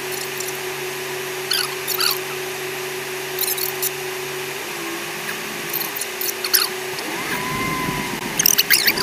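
Fast-forwarded in-car audio from an off-road vehicle driving on sand: a steady engine drone pitched up by the speed-up, overlaid with repeated squeaky chirps. From about seven seconds in the drone wavers and rises as the vehicle climbs a dune.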